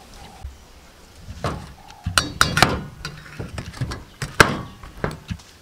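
A metal spoon knocking and clinking against a stainless steel bowl while stirring tamarind pulp soaking in hot water. There are a series of sharp clinks, the loudest about four and a half seconds in.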